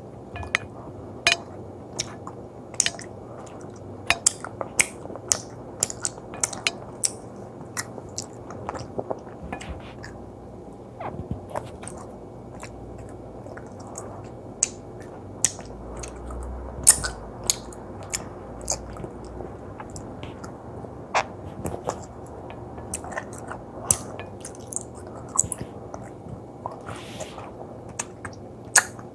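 Close-miked chewing of chewy gummy jelly: irregular wet clicks, smacks and squishes of the mouth working the jelly, a few to several per second.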